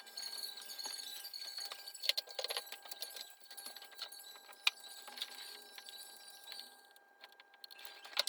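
Light metallic clicks and clinks of tools and small parts being handled, irregular, with a cluster of taps about two seconds in and one sharper click near the middle.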